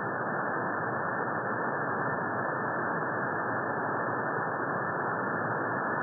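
Steady hiss of shortwave band noise from an SDR receiver tuned to a quiet 40-metre frequency, heard through a narrow sideband filter so it has no treble.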